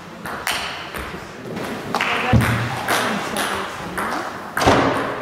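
Table tennis rally: the ball clicking sharply off the bats and the table in an irregular back-and-forth, each hit ringing briefly in the hall's echo, with the loudest hit shortly before the end.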